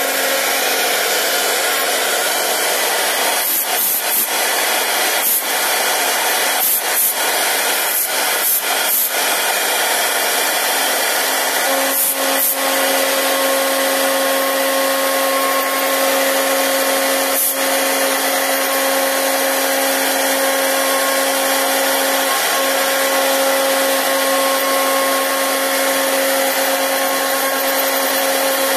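CNC router spindle milling letters into a block of wood: a loud, steady whirring cut with a constant hum under it. About twelve seconds in a higher steady tone joins, and a few brief sharp ticks come in the first half.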